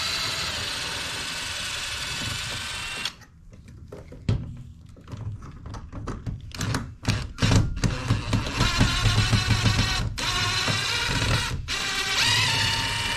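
Cordless drill-driver running in two long bursts, backing screws out of the door frame, with clicks and knocks of the screws and tool between the bursts.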